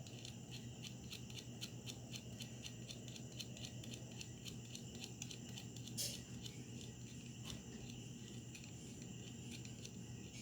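Faint background insect chirping, an even run of about four to five high chirps a second that dies away about six seconds in, with a single soft click at that point. A steady low hum runs underneath.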